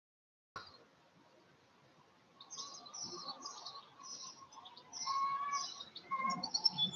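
Garden songbirds chirping: after a brief cut-out of the sound at the start, a run of short, high chirps repeats about two to three a second, with a lower held call joining near the end.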